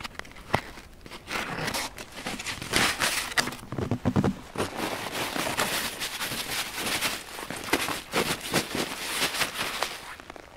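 Rustling, scraping and crackling as a closed-cell foam sleeping mat is pulled off a backpack and spread out over a bed of spruce boughs, with a few sharp clicks near the start.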